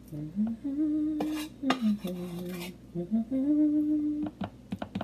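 A person humming a tune in held notes that step up and down. A metal spoon scrapes cookie dough into a metal muffin tin, with a few sharp clinks near the end.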